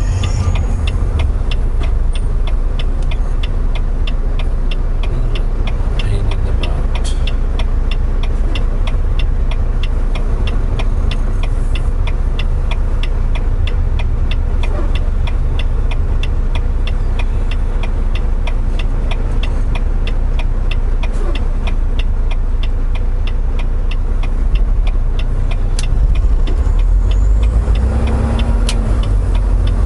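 Semi-truck's diesel engine running steadily, heard from inside the cab as a strong low rumble, with an even, rapid ticking a few times a second that stops near the end as the engine grows louder.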